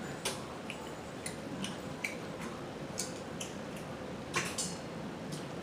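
Close-up eating sounds: about a dozen scattered wet clicks and crackles as crab is picked out of its shell and eaten, the loudest cluster a little over four seconds in.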